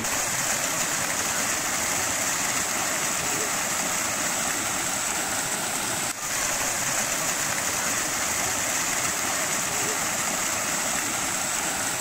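Steady rushing of water from a waterfall and the stream below it, with a brief dip about six seconds in.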